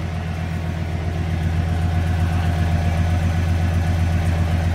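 Cadillac Fleetwood Brougham's 5.7-litre small-block V8 idling steadily at the exhaust tip, a deep, even exhaust note with no revving. It grows louder about a second and a half in as the tailpipe comes close.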